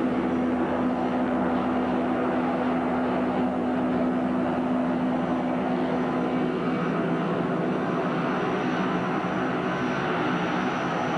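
Steady engine drone: a continuous even noise with a constant low hum, without pauses.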